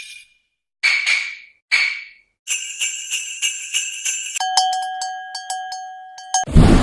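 A run of stock sound effects played one after another: two short bright shimmering hits, then a couple of seconds of jingle bells shaking, then a steady pitched tone with rapid clicks. A sudden loud rush of noise, like the start of a blast, cuts in near the end.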